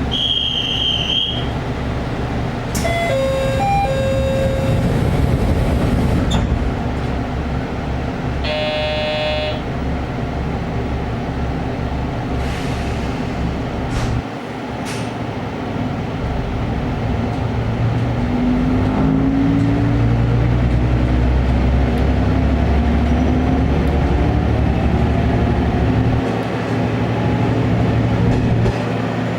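Diesel railcar's engine idling with a heavy steady drone. A few short signal tones sound in the first seconds, and a horn blast of about a second comes near nine seconds in. From about eighteen seconds in, the engine revs up and its pitch keeps rising as the railcar pulls away.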